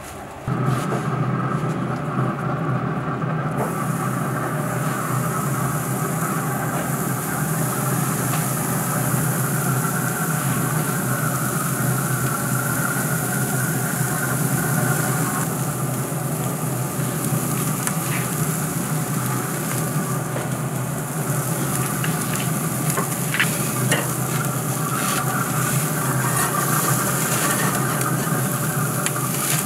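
Beef burger patties and bacon sizzling hard on the grates of a Pit Boss Navigator 850 pellet grill, searing over direct flame at full heat with the searing plate open. The sizzle starts about half a second in and holds steady, with a few clicks of metal tongs.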